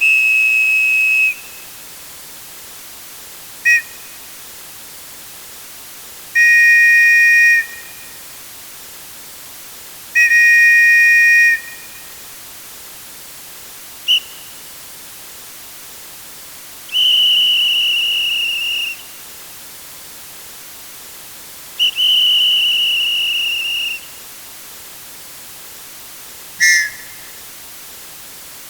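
A series of separate sports whistle blasts, about nine in all, mixing long blasts of a second or two with short single chirps. Some have two pitches sounding together, and some sag slightly in pitch towards their end. A faint steady hiss sits under them.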